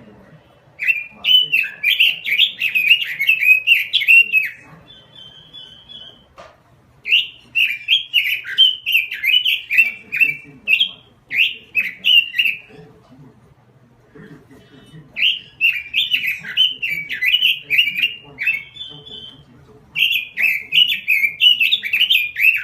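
Pekin robin (red-billed leiothrix) singing hard: four long bursts of rapid, fluty warbling, each a few seconds long, with short high chips in the gaps between them.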